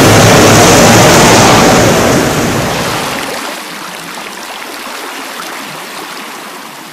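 Loud, steady roar of rushing floodwater churning in a torrent. It fades gradually from about two seconds in.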